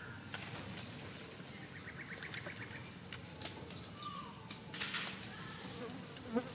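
Outdoor forest ambience: birds calling, with a short rapid chirping trill about two seconds in and a brief falling call a couple of seconds later, over scattered light rustles and clicks in dry leaf litter.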